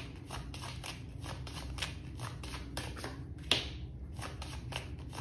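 An oracle card deck being shuffled by hand: a quick, steady run of soft card flicks and slaps, several a second, with one louder snap about three and a half seconds in.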